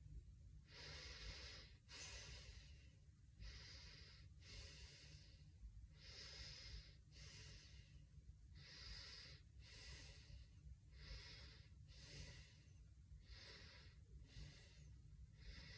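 Faint, slow breathing through the nose, in and out about every two and a half seconds, with the lips held shut and the cheeks puffed full of air.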